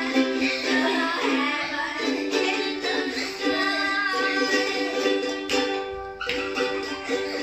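Three ukuleles strummed together in chords, with children singing along.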